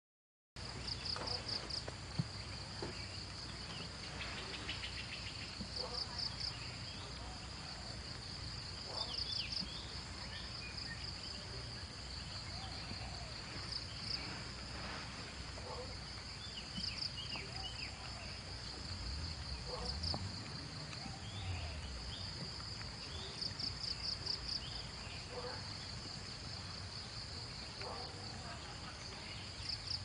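Outdoor insect chorus: a steady high-pitched shrill, with pulsing trills that swell every few seconds. A few short chirps and calls are scattered through it over a faint low rumble.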